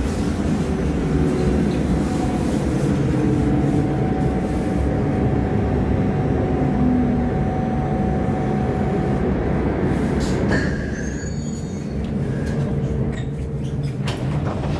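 Duewag B80D light-rail car running on the track with a steady low rumble and a faint held whine. About ten seconds in the rumble quietens, with a few brief high squeals and a single click after that.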